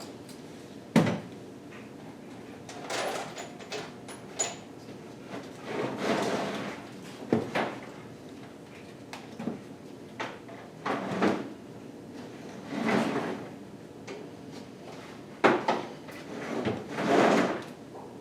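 Hand tools and sockets clanking and scraping while being rummaged for, with toolbox drawers sliding open and shut: irregular sharp knocks mixed with several longer sliding scrapes.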